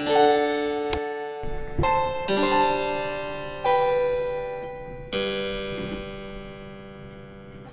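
Background music: slow keyboard chords with a harpsichord-like tone, each struck and left to ring and fade.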